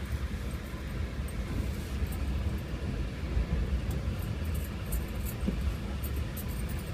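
Moving train heard at an open carriage window: a steady low rumble with rushing air noise and scattered light clicks and rattles.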